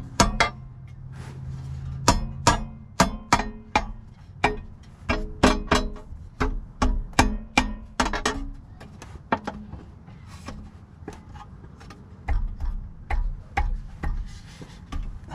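A run of sharp metallic clicks, about two or three a second, from hand tools working on the bellhousing bolts under the car. The clicks fade out past the middle and come back fainter with low knocks near the end, over a low hum at the start.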